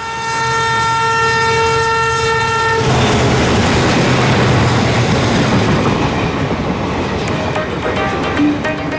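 A train horn sounds one steady note for nearly three seconds and cuts off sharply, followed by the loud running noise of the train.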